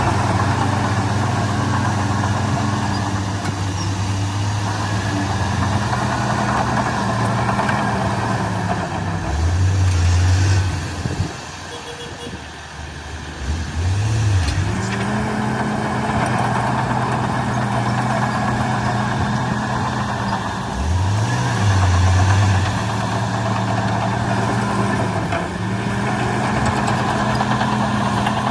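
Heavy diesel engine of earthmoving machinery running and working, its pitch shifting several times as it is throttled up and down, with a quieter spell about 11 to 14 seconds in.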